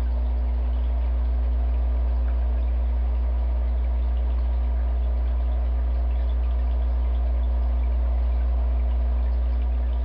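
Steady low hum of aquarium pump equipment with water trickling and bubbling, unchanging throughout.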